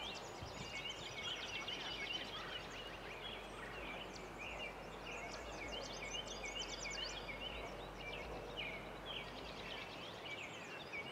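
Small birds chirping, with quick runs of repeated high notes, over a steady background hiss.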